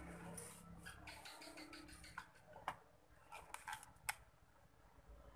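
A series of small, sharp clicks and light taps from handling small parts and tools at a workbench, with a faint low hum that drops out about a second in.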